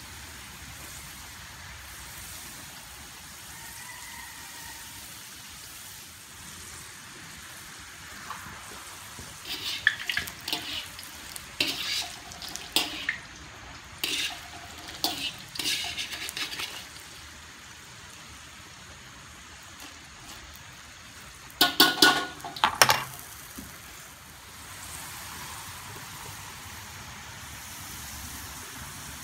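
Potato fries deep-frying in oil in a wok, a steady sizzle. A wire spider strainer scrapes and clinks against the wok in bursts as the fries are scooped out, with the loudest metallic clatter a little past two-thirds of the way through.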